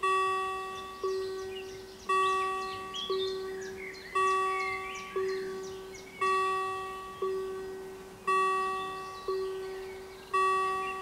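Level crossing warning bells ringing with a regular strike about once a second, each stroke ringing out and fading, strikes alternating louder and softer: the crossing is closed for an approaching train.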